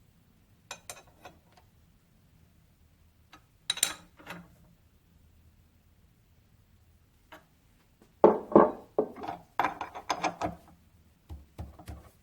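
Metal parts and hand tools being handled on a workbench: scattered clicks and clinks, then a run of louder knocks and clatter about eight seconds in.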